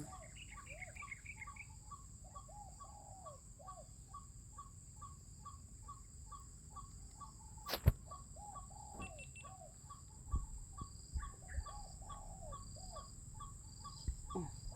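Spotted doves cooing in short groups of low, arched notes, over a steady high insect drone and a fast, evenly spaced ticking call. A little under eight seconds in, a single sharp gunshot rings out, by far the loudest sound.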